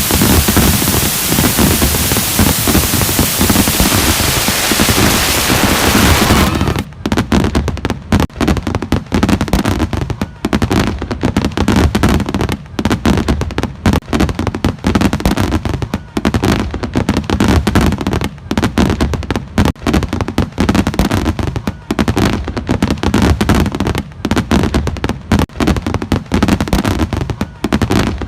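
A fireworks display: a rapid, continuous run of booms and crackling bangs. For the first several seconds a steady hiss like static lies over the booms, then it cuts out abruptly.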